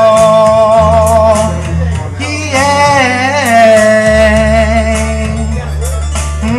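Male voice singing long held notes with vibrato, with slow glides in pitch between them, over an accompaniment of sustained low bass notes that change every second or so.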